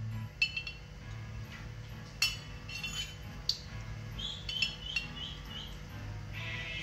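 Metal spoon clinking against a glass jar several times as it scoops inside it, each clink sharp and separate.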